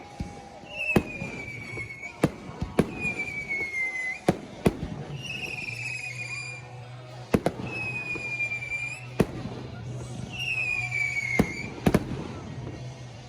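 Fireworks going off in quick succession with sharp bangs, mixed with about six whistling fireworks, each giving a high whistle that falls in pitch over about a second.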